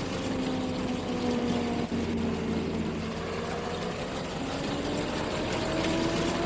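Combine harvester running steadily: an engine drone with a machine whine that wavers slowly in pitch, rising a little near the end and then dropping back.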